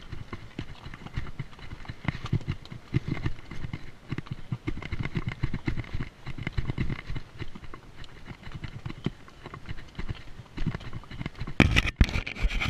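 A ridden horse walking over rocky trail, its hooves clopping and knocking on stone in an uneven rhythm. Near the end, something brushes loudly against the microphone.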